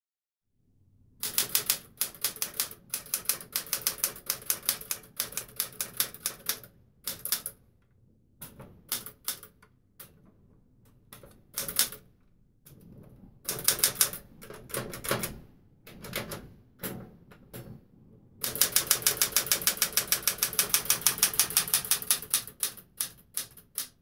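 Smith Corona Classic 12 manual typewriter being typed on: runs of sharp key strikes with short pauses between them, and a long, fast, unbroken run of strikes near the end.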